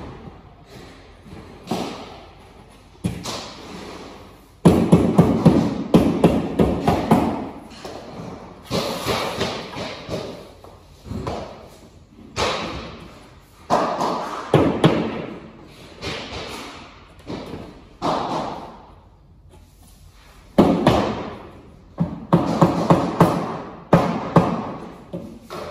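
Laminate planks being knocked into place by hand: bursts of several quick knocks, each burst followed by a short pause, repeating throughout.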